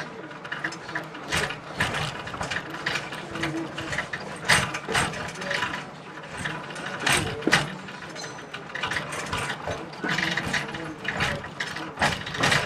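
Railroad train running on the track: wheels and cars clattering and creaking, an uneven run of sharp knocks and clicks several times a second.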